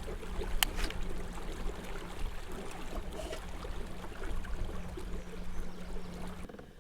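Small fishing boat's motor running with a steady hum and water rushing along the hull, the motor cutting off near the end as the boat coasts. A single sharp click about half a second in.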